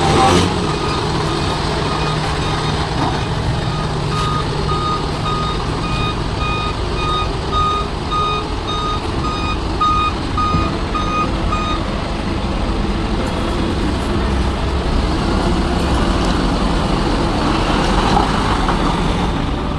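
Truck engine running with a reversing alarm beeping in a steady, rapid rhythm; the beeping stops about twelve seconds in while the engine keeps running.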